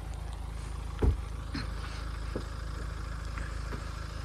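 Mahindra Thar SUV engine idling steadily, with one sharp low thump about a second in and a few fainter knocks after it.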